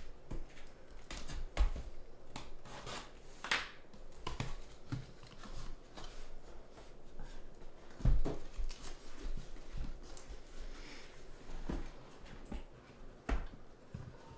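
Cardboard shipping case being cut open and unpacked by hand: a box cutter slicing the packing tape, cardboard flaps scraping and rustling, and irregular knocks as the sealed hobby boxes are pulled out and set down. The loudest knock comes about eight seconds in.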